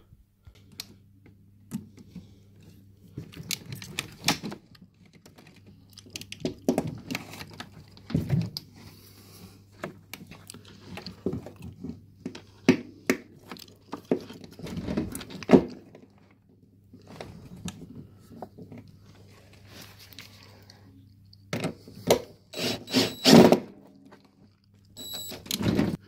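Scattered clicks, knocks and rustling as hands work the wiring and plastic parts underneath a washing machine, the loudest a quick run of knocks near the end, over a steady low hum.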